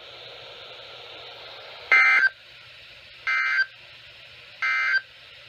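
Three short data bursts of an Emergency Alert System end-of-message code on a NOAA Weather Radio broadcast, about a second and a half apart, the first the loudest, over steady receiver hiss. They mark the end of the blizzard warning message.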